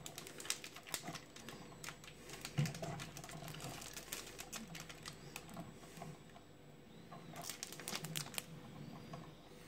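Crinkling and crackling of a foil-laminate coffee bag handled and turned over in the hands, with light taps. The small clicks come in an irregular stream, thickest near the end, with one louder knock about a quarter of the way in.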